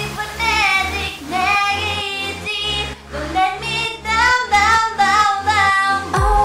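Female voices singing a K-pop song over its instrumental backing track with a steady pulsing bass line; a deep booming kick drum comes in near the end.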